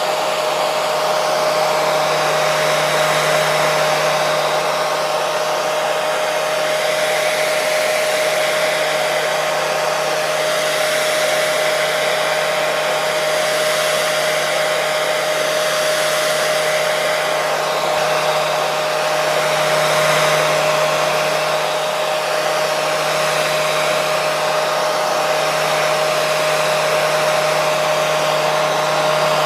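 Hair dryer running continuously: an even rush of blown air over a steady motor whine.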